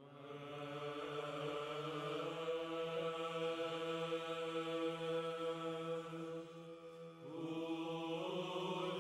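Slow intro chant of held notes over a steady low drone, fading in at the start; it dips about seven seconds in and new notes come in.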